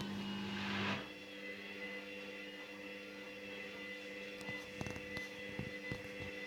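Hoover Dynamic Rapid 30 washing machine on its first rinse: the drum motor hums with a rushing swish for about a second, then stops, and the drum rests with a few faint clicks before the next tumble.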